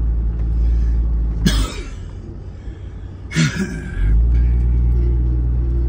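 Off-road vehicle's engine and driveline heard from inside the cabin while driving a sandy dune track, a steady low drone that falls away for about two seconds in the middle and then comes back. Two short noisy bursts, about two seconds apart, stand out over it.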